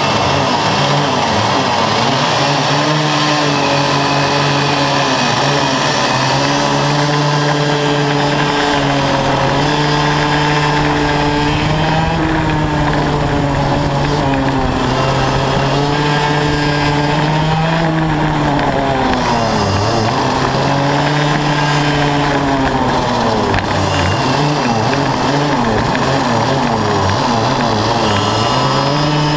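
Yamaha KT100 100cc two-stroke kart engine with a Y-pipe exhaust, heard onboard at racing speed. Its pitch climbs over the first few seconds, then dips and rises again several times as the kart slows for corners and accelerates out of them.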